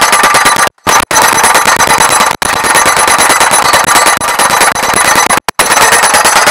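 Hydraulic pile-driving rammer hammering a steel solar-panel mounting post into the ground: a rapid, continuous train of metal-on-metal blows, many a second, with the steel ringing over them. The blows break off for a split second about a second in, again near two and a half seconds, and twice near the end.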